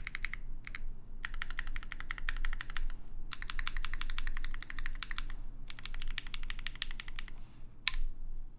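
Typing on a TGR x Singa Unikorn custom mechanical keyboard with lubed C3 Tangerine v2 linear switches, GMK keycaps and an aluminium half plate. Several quick runs of keystrokes come with short pauses between them. A single louder keystroke lands near the end.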